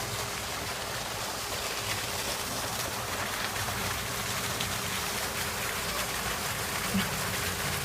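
Steady rush of water from an artificial waterfall, with a single soft knock about seven seconds in.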